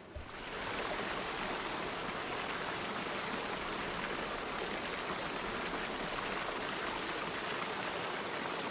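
Steady rushing of flowing stream water, building up over about the first second.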